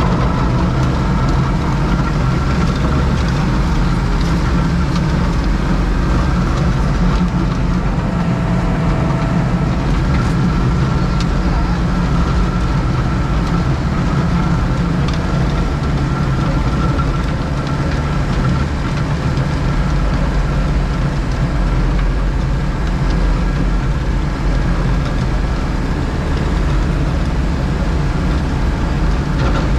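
Diesel engine of a JCB Pothole Pro road-repair machine running steadily, holding the same level throughout.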